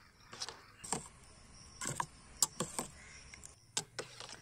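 Steel ladle knocking and scraping against a stainless steel bowl while stirring beaten eggs with chopped vegetables, as a scatter of light clinks.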